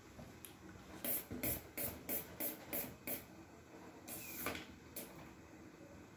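Hands handling rubber balloons: a quick run of short scratchy rubs, about three a second, for two seconds, then a longer rub and one more short one.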